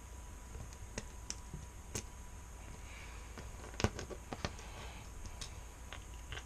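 Scattered light clicks and taps of small metal ratchet internals (springs, pawls, gear) being handled on a bench, with one sharper knock a little under four seconds in.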